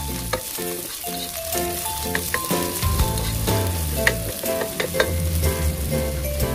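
Garlic and onion sizzling as they sauté in hot oil, with a utensil clicking and scraping against the pan as they are stirred.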